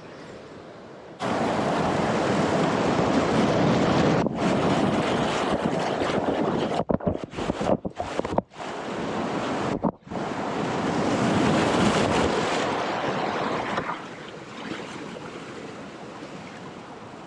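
River whitewater rushing loudly around a small boat running a rapid. The rush cuts in suddenly about a second in, drops out briefly several times in the middle, and eases to a quieter steady rush near the end.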